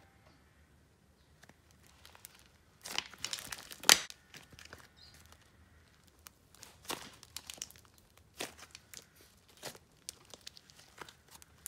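Hands squishing and pressing a slime mixed with fishbowl beads, giving crunchy crackles and pops in scattered bursts, the loudest cluster about three seconds in.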